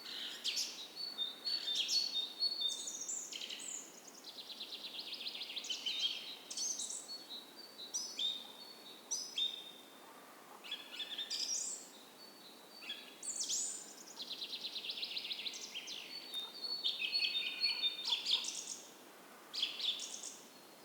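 Songbirds singing in a forest dawn chorus: overlapping chirps and whistled notes, with a long rapid trill twice, about ten seconds apart. A soft steady creek hiss runs underneath.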